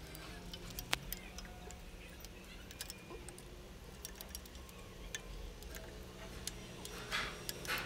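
Light metallic clicks and ticks as steel rocker arms are fitted onto the rocker shaft over the camshaft of a Maruti Suzuki 800 cylinder head, over a faint low hum, with a brief scraping rustle near the end.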